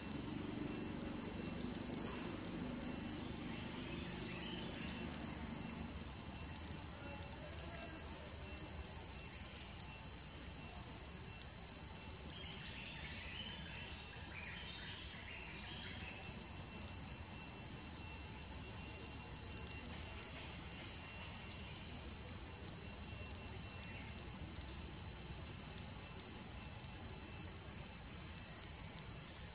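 Forest insect chorus: a loud, steady high-pitched buzz, with a chirp repeating about once a second over it during the first few seconds.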